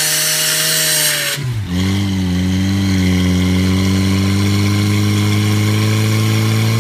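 Portable fire pump's small engine running hard. About a second and a half in, a loud hiss cuts off and the engine dips, then it climbs back to a steady high speed as the pump draws water from the tank through the suction hose.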